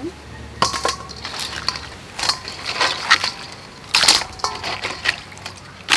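Hands mixing and squeezing chopped raw blue crab in a stainless steel bowl: the shell pieces crackle and click against each other and the bowl at irregular moments.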